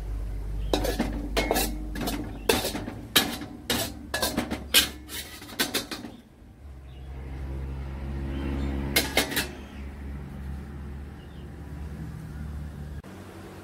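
Metal spatula clinking and scraping against a cooking pan, a quick run of sharp knocks over the first six seconds and a couple more about nine seconds in, as the last of the stir-fry is scraped out into the bowl. A low steady hum runs beneath and cuts off near the end.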